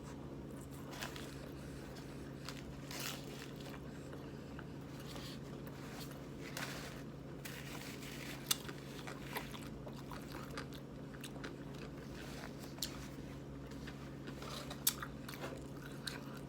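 A person biting and chewing crunchy fast food close to the microphone, with sharp crunches scattered throughout; the sharpest come about halfway through and near the end.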